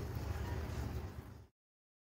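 A steady low rumbling noise that fades and cuts to dead silence about one and a half seconds in.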